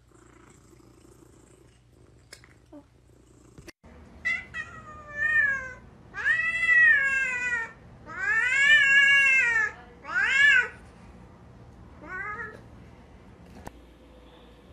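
A small animal crying out in about seven meow-like calls, several short and two drawn out for over a second, each rising and falling in pitch. They start about four seconds in, after a quiet stretch with a few light clicks.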